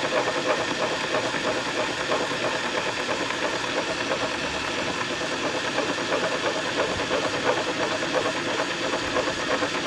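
Cordless drill running slowly in reverse, its hole saw grinding steadily into a carpeted door panel and its foam backing. Drilling backwards lets the teeth rub through the carpet instead of catching and tearing it.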